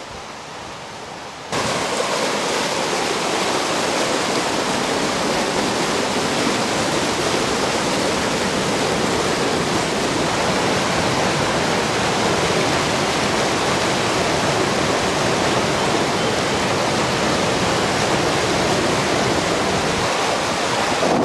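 River in flood: a steady, loud rush of churning floodwater. It jumps much louder about a second and a half in.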